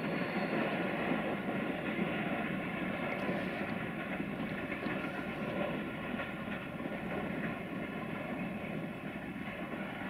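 Distant freight train hauled by two electric locomotives running along the line: a steady rumble of locomotives and wagons that eases off slightly in the second half.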